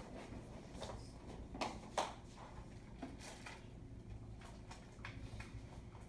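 Quiet room hum with a few scattered light knocks and taps, the sharpest about two seconds in.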